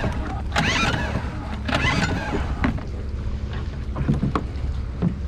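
Repeated pull-start attempts on a Suzuki 2 hp outboard motor: the recoil starter cord is yanked several times, each pull a short whir rising in pitch, and the engine does not fire. A steady low rumble of wind and water runs underneath.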